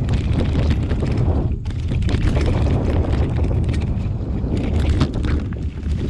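Wind buffeting the microphone of a mountain bike as it rides a dirt singletrack, over a steady low rumble of knobby tyres on dirt and dry leaves. Frequent short clicks and rattles as the bike jolts over bumps.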